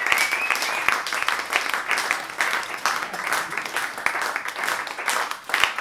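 Audience applauding with dense clapping after a live jazz number. A high, steady whistle carries over the clapping for about the first second.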